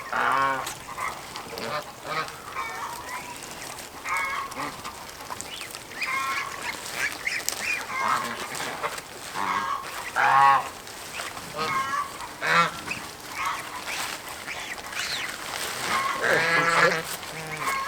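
Geese honking, a string of repeated calls throughout, with the loudest ones around the middle and again near the end.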